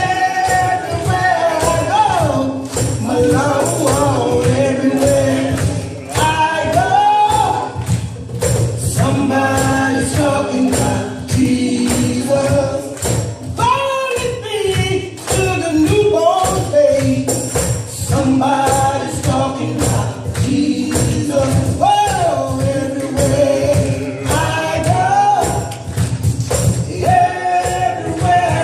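Choir singing an upbeat gospel song with instrumental backing and a tambourine shaken steadily on the beat.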